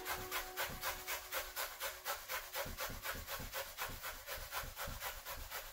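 An onion being grated by hand on a grater: a steady run of rasping strokes, about five or six a second.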